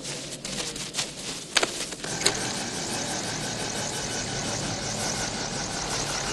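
Helicopter engine and rotor running steadily with a fast rotor chop, heard close from the cabin. In the first couple of seconds there are a few sharp cracks, the two loudest about a second and a half and two seconds in.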